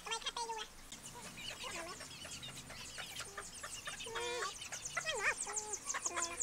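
Chickens clucking in short, scattered calls, with one longer call about four seconds in. A fast, high-pitched chirping repeats steadily behind them and grows stronger in the second half.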